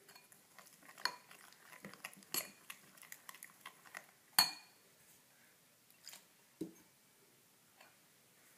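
Stainless steel spoon stirring thick batter in a glass bowl, clinking and scraping against the glass in irregular knocks, the sharpest about four seconds in.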